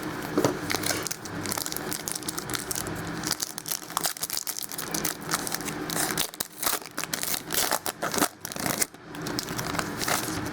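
Plastic wrapping on a sealed box and packs of football trading cards crinkling and tearing as they are opened by hand, in many quick, irregular crackles.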